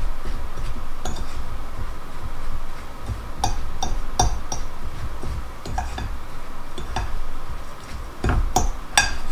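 Metal fork stirring and mashing a butter-moistened crumb crust in a glass bowl, the tines clinking sharply against the glass at irregular intervals, sometimes twice in quick succession.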